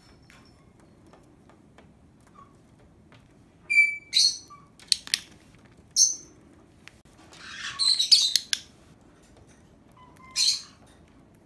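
Lovebird giving short, high-pitched chirps several times, with a rapid cluster of squawks near the middle. A few sharp clicks come between the calls.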